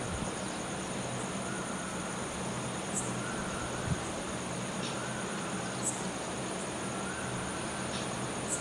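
Night ambience: a steady high insect chorus, typical of crickets, over a low hum and hiss, with faint short chirps every second or two.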